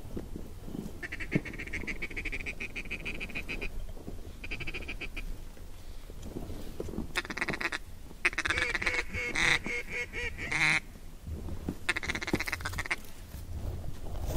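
Mallard duck call blown in five runs of quacks and fast feeding chatter, separated by short pauses, to bring in ducks.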